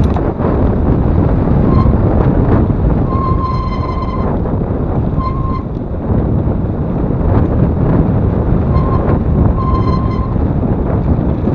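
Heavy wind buffeting on the microphone of a mountain bike running downhill. Short, high, ringing squeals from the bike's brakes come through it several times, the longest about three seconds in and again near ten seconds.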